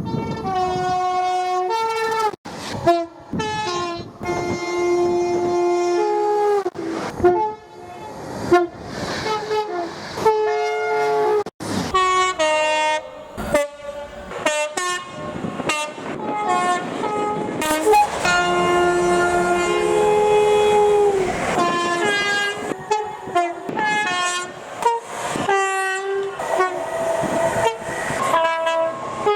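A run of UK train horn blasts, the horns stepping back and forth between high and low notes in short and long toots. They change abruptly every few seconds as one clip follows another, with the rumble of passing trains between blasts.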